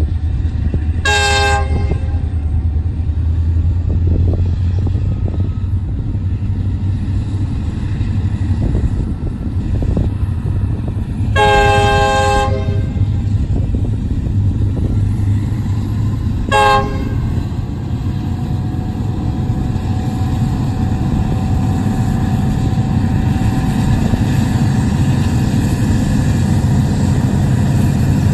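Nathan K5HL air horn on a Union Pacific SD70M diesel locomotive, sounding very foul (sour and out of tune). It gives three blasts: a short one about a second in, a longer one about halfway, and a brief one a few seconds later. Under the horn is a steady low rumble of the approaching diesel locomotives.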